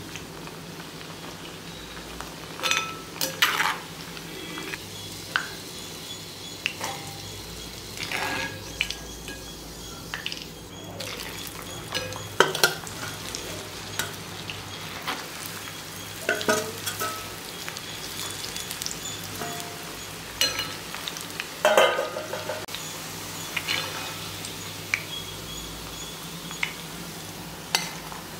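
Jackfruit pieces sizzling as they deep-fry in hot oil in a cast-iron pan. A metal spoon clinks against the pan now and then as the pieces are stirred and turned.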